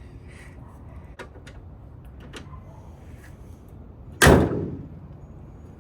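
A car's door or lid slammed shut once, a single loud slam about four seconds in, after a few light clicks and knocks.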